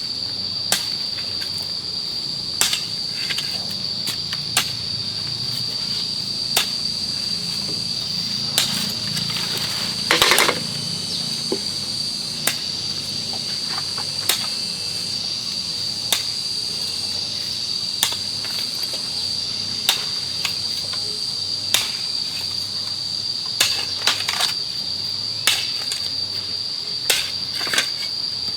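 Steady high-pitched drone of insects, with sharp knocks about every two seconds from a tool striking wood or bamboo as the house's walls are taken apart, and a short scraping rustle about ten seconds in.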